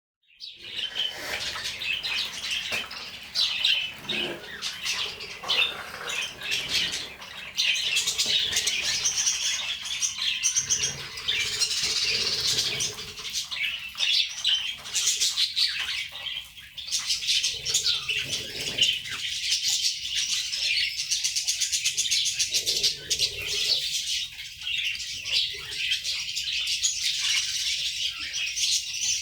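A flock of small birds chirping and chattering continuously, with wings flapping now and then.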